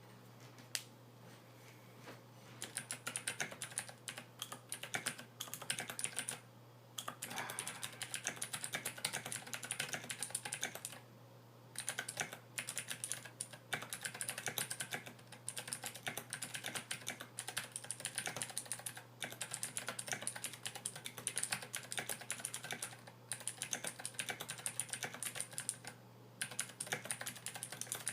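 Typing on a Royal Kludge RK61 60% mechanical keyboard fitted with SA-profile PBT doubleshot keycaps damped with rubber tape and with lubed, balanced stabilizers. Fast runs of keystrokes begin about two and a half seconds in, broken by a few short pauses.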